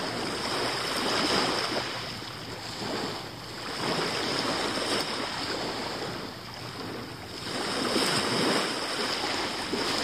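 Small sea waves washing onto a pebble beach and drawing back, swelling and fading every few seconds.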